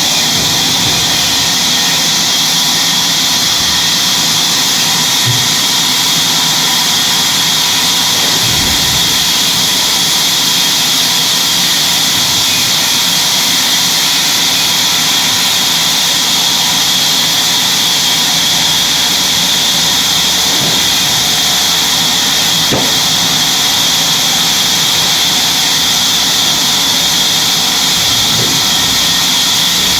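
Sawmill machinery running steadily, a loud, even, high-pitched hiss, with a few faint knocks.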